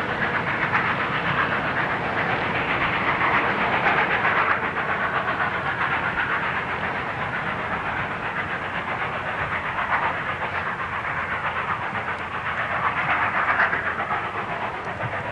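Passenger cars of a steam-hauled train rolling past and away on the rails, with a steady rushing hiss of wheel and steam noise as the train pulls out.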